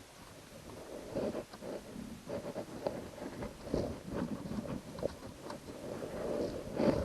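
Irregular rustling and scraping of things being handled, with scattered light clicks and knocks.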